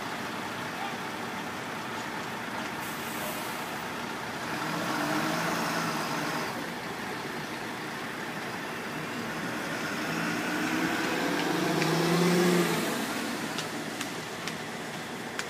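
Vehicle engines running, with two swells of engine tone; in the second, about ten seconds in, the pitch rises to the loudest point before it drops away suddenly.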